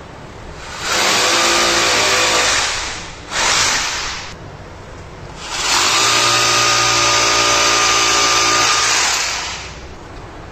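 Electric drill running under load, boring holes in the wall for wall plugs to hang cable duct: a run of about two seconds, a short burst, then a longer run of about four seconds, each with a steady motor whine.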